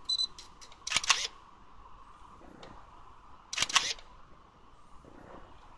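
Kyocera Samurai Z2 film camera: a short electronic beep, then the shutter firing with its motorized film advance, twice, about two and a half seconds apart. After each shot a faint rising whine, the built-in flash recharging.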